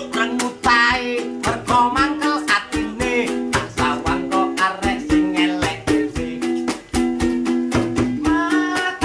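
Ukulele strummed in a quick, steady rhythm, with a man singing over it at the start, briefly around the middle, and again near the end.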